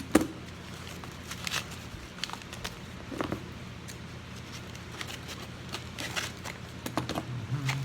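Packaging and plastic-sleeved trading cards being handled: scattered rustling, crinkling and light taps, the sharpest click right at the start.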